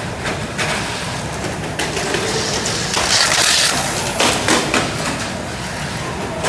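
Tamiya Mini 4WD cars running on a plastic race track: a busy clatter of clicks and knocks as they hit the lane walls, with a louder, hissing rush of cars passing about three seconds in.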